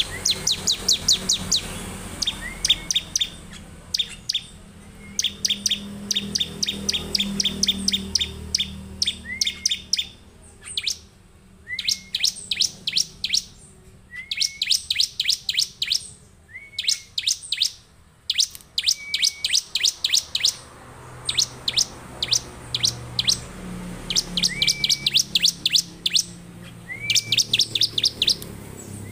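Bar-winged prinia (ciblek) singing in full 'gacor' form: bursts of rapid, high, repeated notes, each burst about a second long, repeating every two to three seconds.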